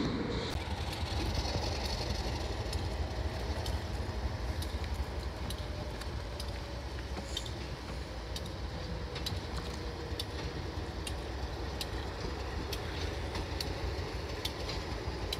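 Adirondack Scenic Railroad diesel locomotive No. 1845 running with a steady low rumble while shunting passenger cars around the yard. Scattered light clicks sound throughout.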